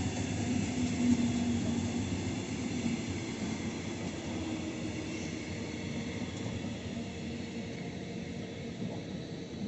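Double-deck regional passenger train rolling past on its rails and fading away as its last coach moves off, leaving a steady hum and rumble that slowly dies down.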